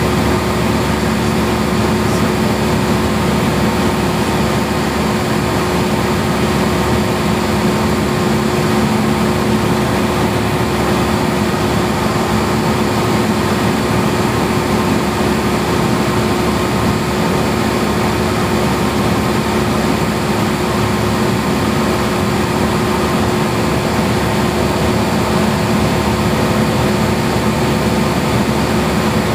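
Single-engine Cessna's piston engine and propeller running steadily in cruise flight, a constant drone with a few steady tones and no change in pitch.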